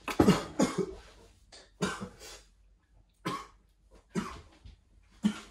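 A man coughing repeatedly, a cough or a quick pair of coughs about every second: a sip of his drink has gone down the wrong way.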